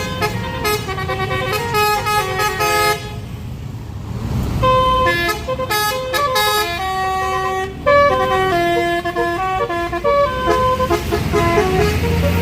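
Basuri multi-tone 'telolet' horn on a tour bus playing a fast tune of short, stepped notes. It breaks off about three seconds in, then plays on for several more seconds over a low rumble.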